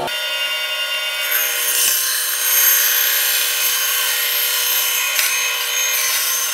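Band saw running, its blade cutting into a Goodyear-welted leather boot with a steady whine and rasp that grows a little louder after about a second. The blade is struggling against the tough leather and sole.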